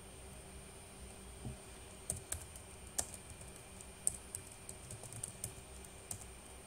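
Computer keyboard being typed on: a quick, irregular run of key clicks starting about two seconds in, over a faint steady hum.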